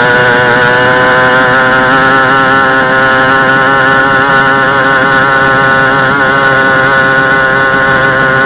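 700cc two-stroke boat engine running flat out, driving the boat at top speed: a loud, steady high engine note, its pitch easing slightly in the first second and then holding level.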